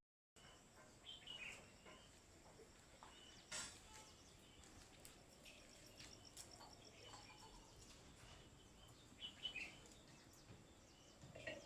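Faint outdoor ambience with scattered short bird chirps and a faint high insect trill.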